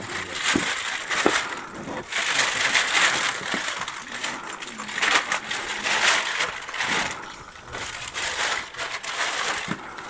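Wind buffeting the microphone in gusts, a rushing noise that rises and falls every second or two, with a few light knocks near the start.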